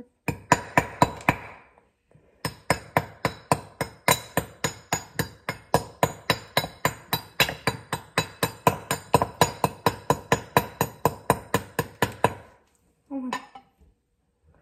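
A knife repeatedly striking a ball of ice on a wooden cutting board: sharp knocks at about four a second, a short run, a brief pause, then a long steady run that stops near the end.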